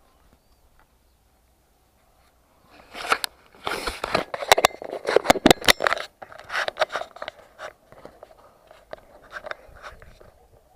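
Close, irregular crunching and scraping clicks with rustling, beginning about three seconds in and densest for the next few seconds.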